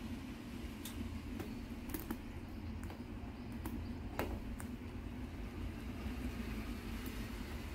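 Guinea pig nibbling a piece of kabocha squash: small irregular crunchy clicks of its bites and chewing, over a steady low hum.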